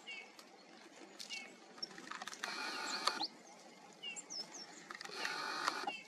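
Eurasian bullfinch calling: two drawn-out, buzzy notes of about a second each, roughly two and a half and five seconds in, among short soft whistled chirps.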